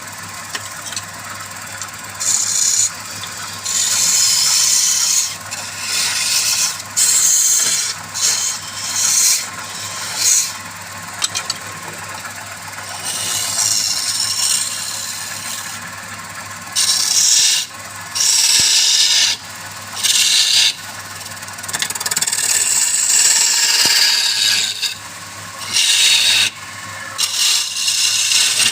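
Wood lathe running with a steady hum while a tool is pressed against the spinning wood in repeated strokes of hissing, rasping scraping, each lasting from under a second to a few seconds.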